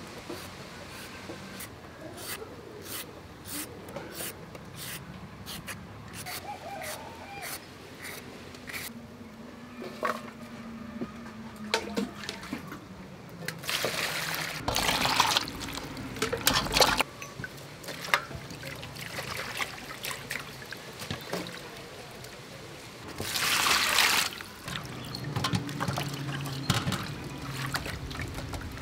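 Water poured from a plastic dipper into a steel bowl of vegetables, twice for a couple of seconds each, about halfway through and again near the end, followed by splashing as the vegetables are rinsed by hand. Before the pouring, a run of sharp clicks from a small knife working on the vegetables.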